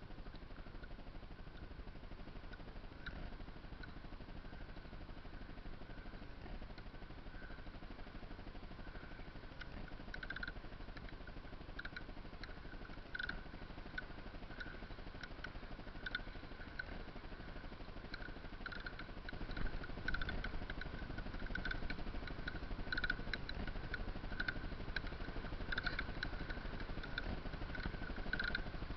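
Kayak pedal drive squeaking in a steady rhythm, about once a second with each pedal stroke, muffled by the camera's waterproof housing, getting louder about two-thirds of the way in. The noise is a defect in the pedal unit, which the owner says began after it was dropped in the water.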